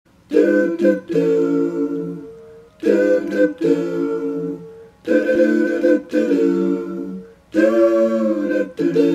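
A cappella vocal music: four sung phrases, each a few short notes ending in a long held note that fades, starting about every two and a half seconds.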